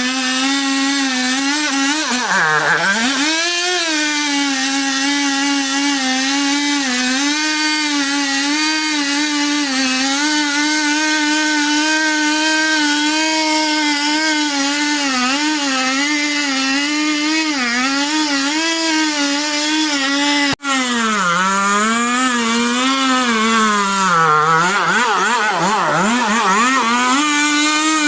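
Two-stroke chainsaw running at high revs while cutting wood. The engine note sags sharply under load about two to three seconds in and again several times near the end. There is one very brief break in the sound about twenty seconds in.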